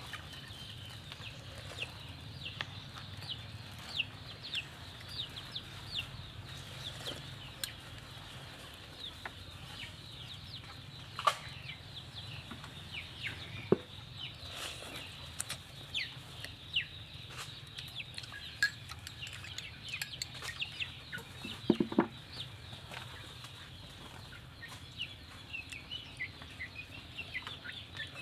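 Chickens calling, with many short, high, falling peeps throughout. A metal spoon clicks sharply against a ceramic bowl a couple of times.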